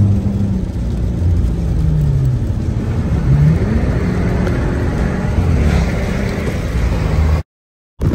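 Car engine and tyre noise heard from inside the cabin on a wet road, the engine note dipping and then rising as the car speeds up to pass. The sound cuts off suddenly near the end.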